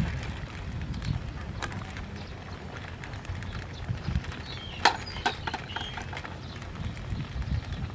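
Metal ladle clinking and knocking against a metal soup pot in a few sharp strokes, the loudest about five seconds in, over a low wind rumble on the microphone.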